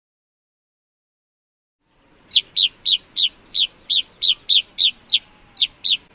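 A bird calling: about a dozen short, sharp notes, each slurring down in pitch, repeated about three times a second, starting about two seconds in.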